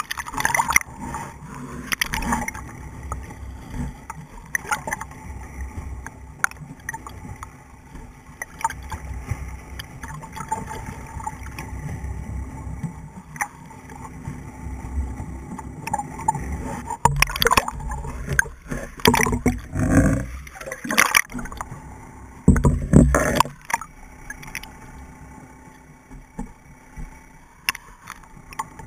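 Underwater sound through a camera's waterproof housing: muffled water rushing and gurgling bubbles with scattered sharp clicks, rising in a few louder gushing surges a little after halfway.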